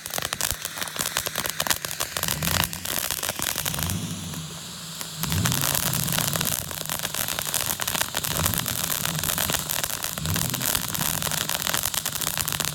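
Ground fountain firework spraying sparks: a dense, continuous crackling hiss. From about two and a half seconds in, a low droning tone runs underneath.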